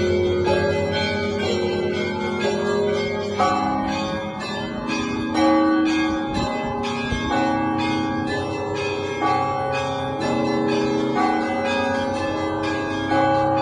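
Church bells of the Spaso-Preobrazhenskaya bell tower ringing a Russian peal: several bells of different pitches are struck in quick succession, a few strikes a second, with small bells chiming over deeper bells that ring on.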